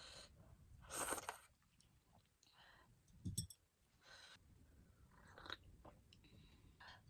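Faint, irregular chewing and mouth sounds of someone eating spicy ramen with chicken sausages, with a sharper click about three seconds in.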